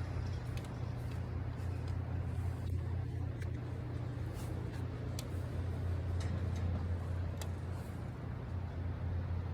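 Home-built sawmill planer's 5 hp motor and 20-inch spiral cutter head running steadily with a low hum, with a few faint ticks.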